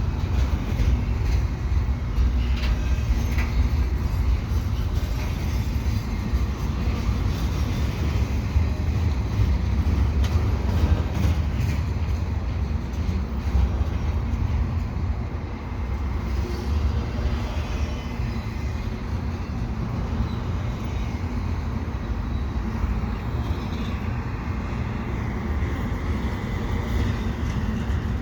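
CN freight train's intermodal cars rolling slowly past on the rails, a steady low rumble of wheels and cars.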